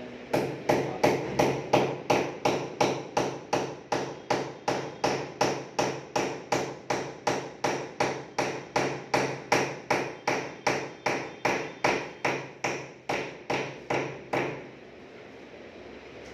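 Hammer striking in a steady run of even blows, about three a second, fixing PVC wall panelling at the top of the wall; the blows stop about fourteen seconds in.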